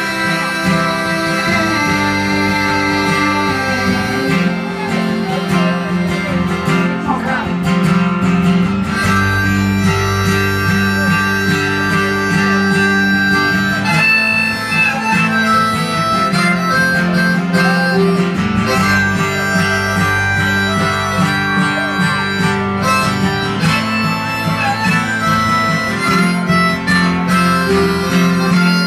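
Live harmonica solo of sustained, held notes over a strummed acoustic guitar, an instrumental break in a country song.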